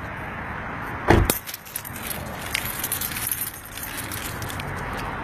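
A single heavy thump about a second in, then keys jangling and clinking in irregular small clicks.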